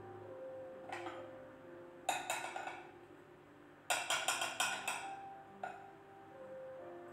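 Background music: held notes with two runs of quick percussion strikes, about two seconds in and again about four seconds in.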